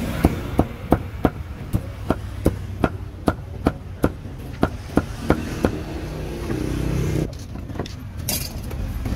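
Cleaver chopping grilled pork: a run of about fifteen sharp chops, two to three a second, that stops about six seconds in.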